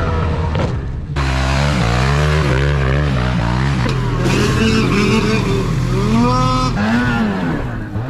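Snowmobile engine revving up and down under throttle, its pitch rising and falling several times, with abrupt cuts between clips near the start and about two-thirds of the way through.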